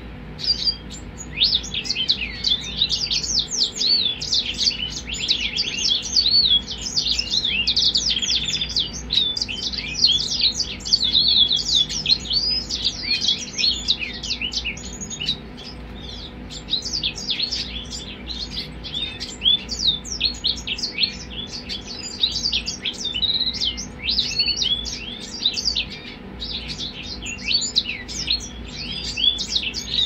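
Caged grey singing finch (grey singer) and canary singing: a long, near-unbroken run of fast, high twittering notes that sweep up and down, easing only briefly now and then.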